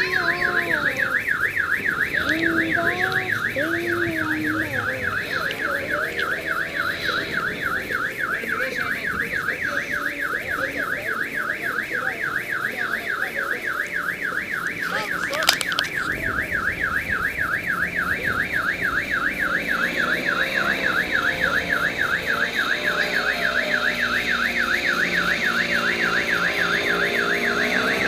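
An electronic alarm sounds continuously, a high tone warbling up and down several times a second, like a car alarm. A single sharp click comes about halfway through.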